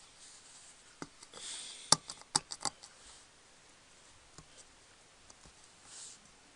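Screwdriver working the small screws inside a hard drive: a handful of sharp, light metallic clicks clustered between about one and three seconds in, with a brief scrape among them and another short scrape near the end.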